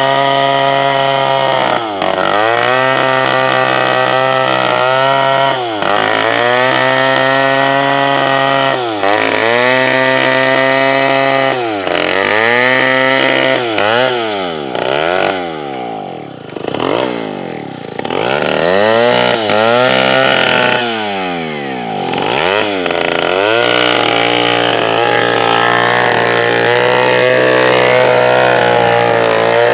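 Two-stroke chainsaw ripping a log lengthwise, running at high revs under load, with the engine note dipping and recovering every two to three seconds. In the middle the revs fall and climb several times in quick succession before it settles into a steadier cut.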